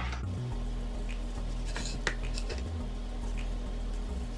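Chef's knife slicing through a ripe tomato and tapping a plastic cutting board: a few faint, sharp clicks, the clearest about two seconds in, over a low steady hum.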